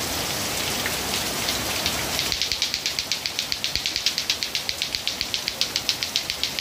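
Steady rain falling on a paved yard and plants. About two seconds in, a fast, even clicking starts over the rain, about seven clicks a second.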